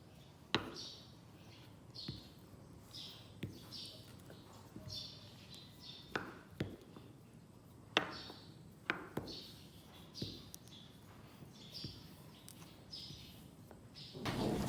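A knife knocking sharply on a cutting board now and then, cutting homemade spinach egg noodle dough into chunks, with birds chirping repeatedly in the background.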